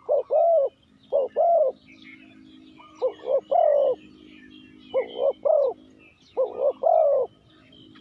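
Spotted dove cooing: five phrases of two or three coos each, repeated about every one and a half seconds. Faint chirps of small birds run underneath.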